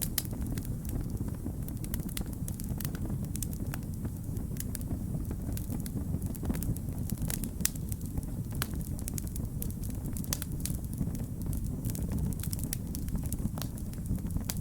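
Wood fire crackling: frequent, irregular sharp pops and snaps over a steady low rumble of the burning fire.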